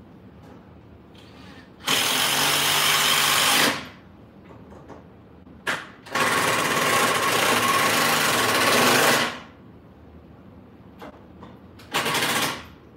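Handheld cordless power driver running in stop-start bursts, driving screws into a router table: a run of about two seconds, a short blip, a longer run of about three seconds, then a brief half-second spin near the end.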